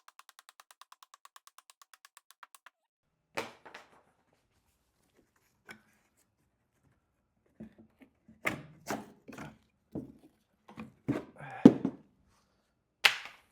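Thuds and knocks of wood and parts being handled and set down, bunched together over a few seconds in the second half, with a sharp strike near the end. It opens with a rapid run of light clicks, about seven a second.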